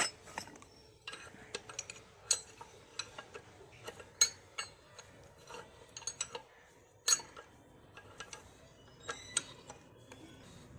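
Irregular metallic clinks and taps of tools and metal parts being handled during a pump gland-packing (water seal) replacement, a dozen or so sharp strikes at uneven intervals.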